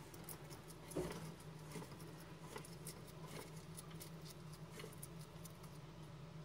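Bearded dragon chewing food from its bowl: faint, irregular crisp crunching clicks, with a single louder knock about a second in.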